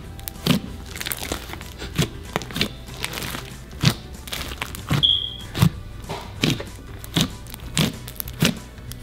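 Hands squeezing and poking a very thick, sticky glitter slime with beads in it, making wet, sticky pops and clicks about once or twice a second, with a brief high squeak about five seconds in.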